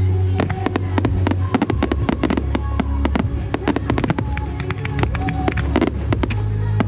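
Fireworks going off in quick succession, many sharp bangs and crackles several a second, over a pop song with a steady bass line.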